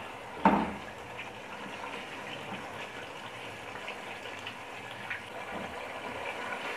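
Tomato-and-yogurt masala frying down in oil in a nonstick stockpot, bubbling and sizzling steadily as a slotted spoon stirs through it, with one brief louder knock about half a second in.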